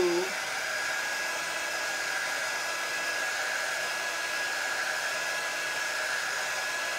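Handheld craft heat tool blowing steadily with a thin high whine, drying chalk paste under a silkscreen.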